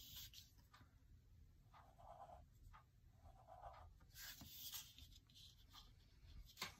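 Fine-tip drawing pen scratching faintly on watercolor paper in short strokes as small line patterns are inked, with a sharp tick near the end.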